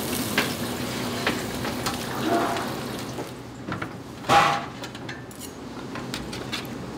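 Kitchen clatter: metal utensils and dishes clinking and knocking, with one louder, brief rushing scrape about four seconds in.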